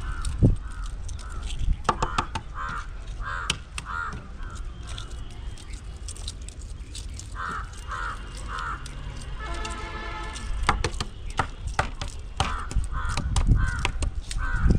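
Crows cawing in repeated bursts of several caws, about three a second, over scattered sharp clicks.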